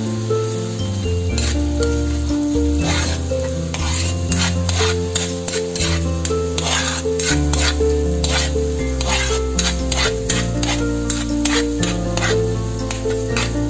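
Minced garlic sizzling in melted butter in a wok, with a metal spatula stirring and scraping the pan in repeated strokes. Background music with a steady melody plays along.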